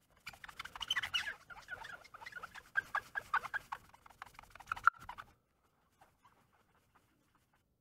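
A small sponge pad scrubbed quickly back and forth over a clear round lens, rapid rubbing strokes with short squeaks, stopping about five seconds in and followed by a few faint light rubs.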